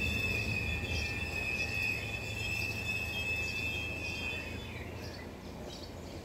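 A regional train's running sound dying away out of view: a steady high whine over a low rumble, fading and ending about four to five seconds in. Short bird chirps follow near the end.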